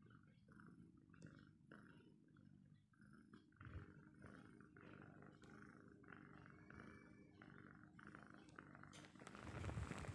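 Calico cat purring faintly while being stroked, the purr coming in soft regular pulses. Near the end a louder rustling joins it.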